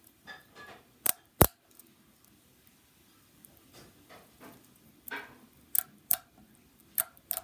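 Pink slime being squished and stretched by hand, giving soft squelches and about six sharp popping clicks of trapped air. The loudest pops come about a second in, and more follow in the second half.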